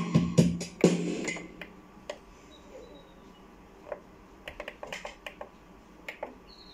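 Small electronic keyboard: a few short notes in the first second or so, then the plastic keys clicking as they are pressed, with little or no tone sounding.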